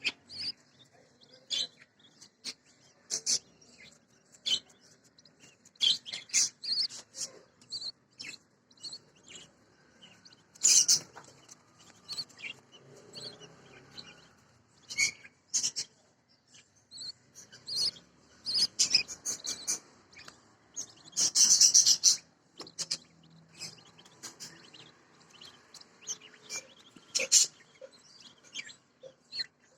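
Budgerigars chirping in short, high calls on and off, with a longer, louder burst of chirping about twenty seconds in.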